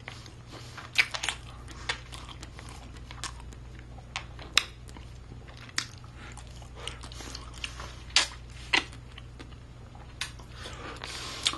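A person chewing a mouthful of chicken close to the microphone, with irregular mouth clicks and smacks. A low steady hum runs underneath.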